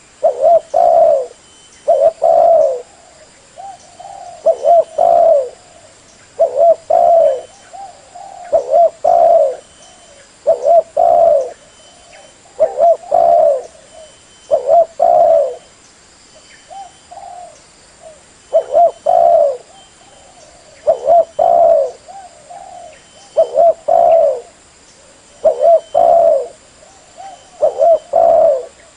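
Spotted dove cooing: short low coo phrases of two or three notes repeated about every two seconds.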